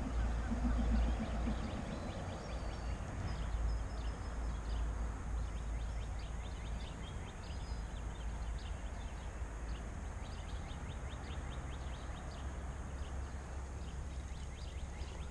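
Wind buffeting the microphone: a low rumble, strongest in the first couple of seconds, then steadier. Through the middle runs a long string of faint, quick high ticks.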